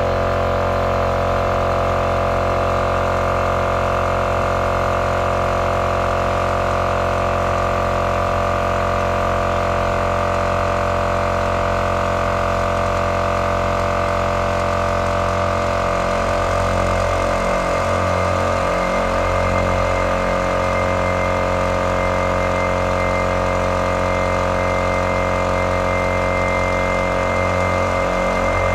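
Air compressor running steadily with a constant droning note, supplying air through the hose to the flushing bailer used to clear sludge from the well pipe. Its note wavers slowly from about halfway.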